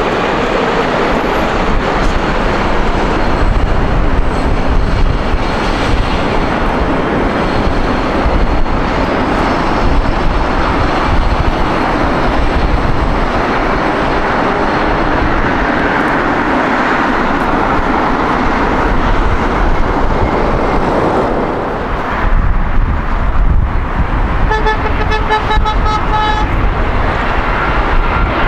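Loud, steady jet engine noise of an airliner at close range, with a car horn honking in short pulses for about two seconds near the end.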